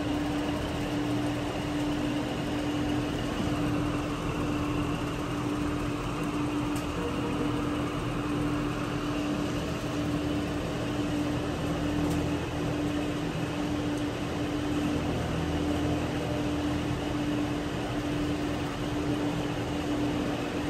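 Steady hum of a quiet casino floor: ventilation and machine noise with one constant low tone running through it, and a few faint ticks.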